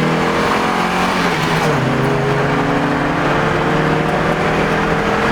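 Honda Prelude four-cylinder engine under hard acceleration, its note climbing, dropping sharply at an upshift about one and a half seconds in, then climbing again through the next gear.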